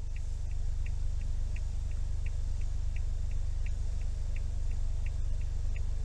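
Car turn-signal indicator ticking steadily, about three ticks a second alternating louder and softer, over the low hum of the idling car.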